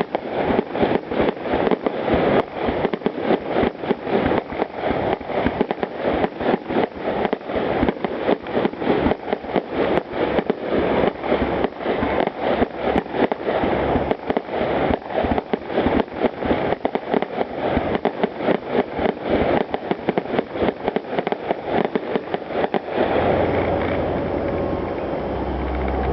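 Fireworks finale: a rapid barrage of aerial shell bursts, several bangs a second overlapping one another, that stops about 23 seconds in, leaving a steady din.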